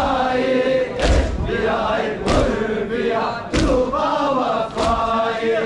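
Men chanting a noha in unison, with strong thuds in time with the chant about every 1.2 seconds, four in all: the mourners' hands striking their chests in matam.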